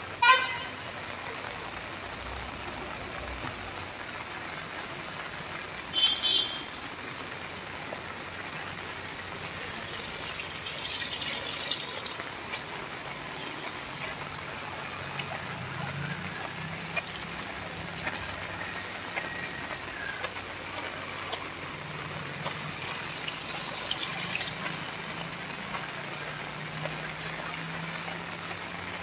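Heavy rain pouring steadily onto paved ground and standing water. Two short high tones cut through it, one at the very start and one about six seconds in.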